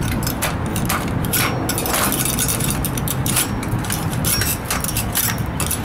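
A small metal tool clinking and scraping against the pedal and crank of a child's bicycle: irregular light taps, over a steady low background rumble.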